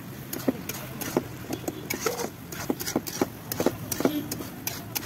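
Metal spatula knocking and scraping against an iron kadai while thick curry masala is stirred: sharp, irregular clicks a few times a second over a steady low hum.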